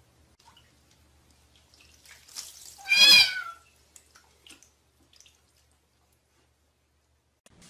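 A cat meows once, a loud high-pitched call that drops in pitch at its end, with a few faint clicks and taps around it.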